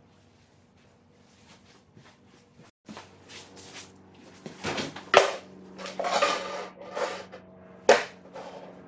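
Orange plastic wheel chocks clattering, knocking and scraping on a concrete floor as they are set down and pushed against the tires, with a couple of sharp knocks about five and eight seconds in.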